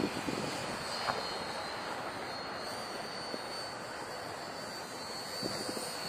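The twin brushed electric motors and three-blade propellers of a micro RC P-38 whining high and steadily in flight, the pitch wavering slightly, with wind buffeting the microphone underneath.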